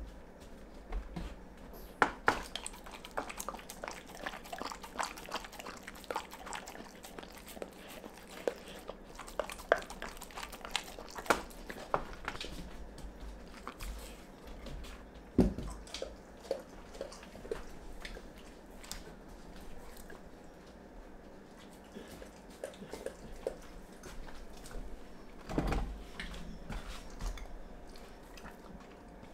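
A dog eating raw food off a wooden cutting board: a run of wet licks, smacks and chewing, with a few sharper knocks.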